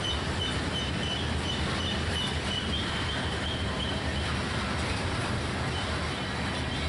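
Covered hopper cars of a freight train rolling past on steel rails, a steady rumble and rush of wheels on track. A faint, high, rapidly repeating tone sounds over it for the first few seconds, then fades.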